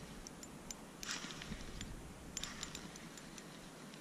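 Faint scattered ticks and two short rustles, about a second in and again near the halfway point, as an ice-fishing rod and spinning reel are handled.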